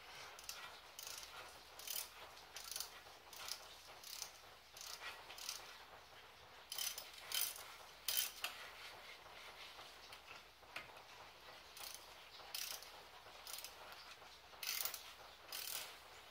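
Short, irregular bursts of metallic clicking and scraping, roughly one every second and sometimes in quick clusters, from hand work on a 2003 Audi A4's front brake caliper and its freshly greased slide pins.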